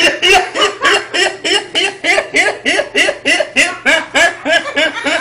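A young man laughing hard and without pause, a steady run of high-pitched 'ha' pulses at about three a second.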